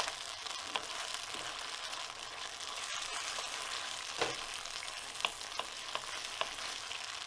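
Bulgogi beef and its sauce sizzling in a pan, a steady hiss, while it is stirred: a utensil clicks against the pan every so often, most sharply about four seconds in.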